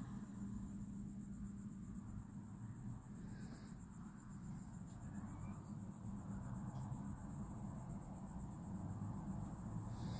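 Insects chirring in a steady, high-pitched, fast even pulse, over a low steady hum.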